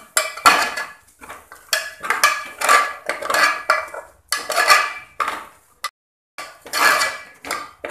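A spoon or ladle scraping the bottom of a pressure cooker in repeated strokes, about one a second, with a brief pause about six seconds in. A thick peanut, chilli and ginger paste is being stirred on low heat to keep it from catching on the bottom.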